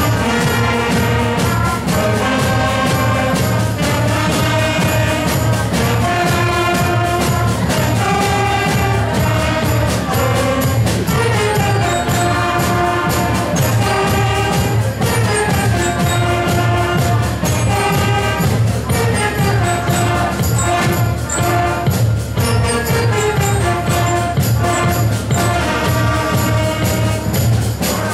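A school concert band plays a pop-song arrangement with keyboard and drum kit, with a melody over a steady bass and beat. The music stops right at the end.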